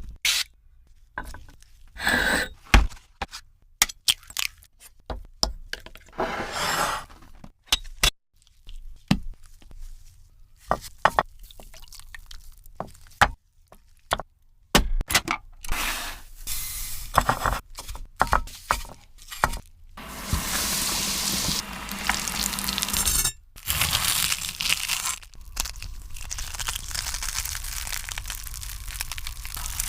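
A string of short kitchen sounds (clinks, taps and cracks of dishes and utensils) broken by brief gaps, then from about twenty seconds in a steady sizzle of donuts frying in oil.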